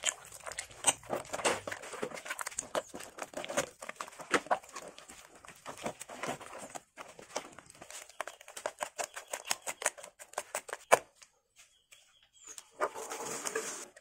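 Bare hand squelching and slapping through wet cement in a plastic bucket: a quick, irregular run of wet smacks. It pauses for about a second and a half near eleven seconds in, just after one loud smack, then starts again.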